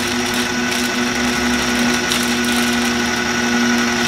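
Food processor motor running steadily on its low setting, grinding pine nuts and garlic into a paste for pesto, with a constant whine. A few faint crinkles of a plastic bag sound over it.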